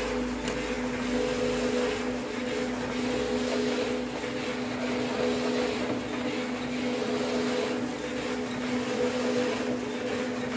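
Conical dough rounder running, its motor and turning cone giving a steady hum with two constant tones over an even mechanical whirr.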